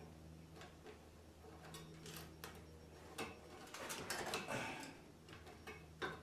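Scattered light clicks and rustling as wires are handled and tucked into place on the back of a garage door opener, over a steady low hum.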